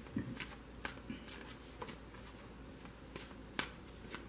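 Deck of tarot cards being shuffled and handled in the hand: a run of light, sharp card snaps, about seven spread unevenly, the loudest about three and a half seconds in.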